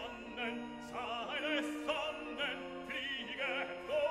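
Operatic singing over orchestral backing music: held notes with a wide vibrato above steady sustained chords.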